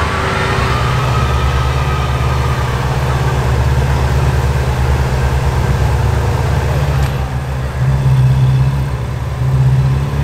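Ferrari J50's twin-turbo V8 running at low revs as the car creeps along at walking pace, with two brief rises in the engine note near the end.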